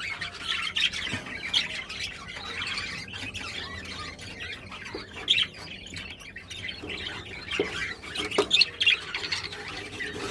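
Budgerigars chattering and squawking continuously, with a few light knocks as the wooden nest box is handled in the wire cage.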